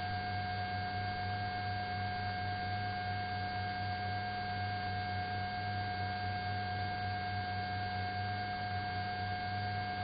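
A steady high tone over a low hum and hiss, unchanging throughout: the open intercom/radio channel of a police helicopter between transmissions.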